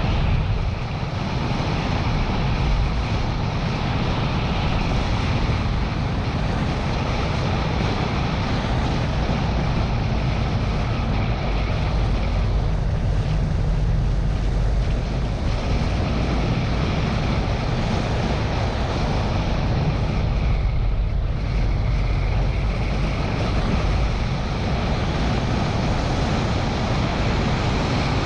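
Car driving along a winding road, its engine and tyre noise mixed with wind buffeting the hood-mounted camera's microphone. The sound is steady, easing briefly twice.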